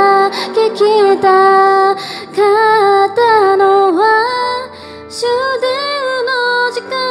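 A woman singing a slow, tender song into a handheld microphone, holding long notes that bend and waver in pitch.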